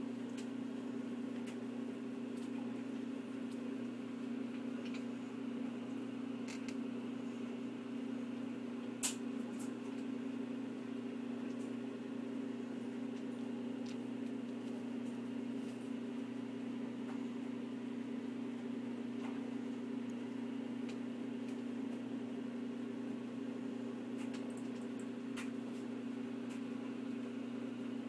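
Steady mechanical hum, with a few faint ticks, one sharper about nine seconds in.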